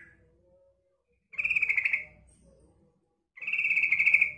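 Female yellow-vented bulbul (trucukan) calling: two rapid chattering calls, each just under a second long and about two seconds apart, after a short note at the start.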